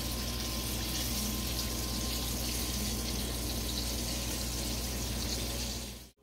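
Steady hissing noise with a low hum underneath, unchanging until it cuts off abruptly near the end.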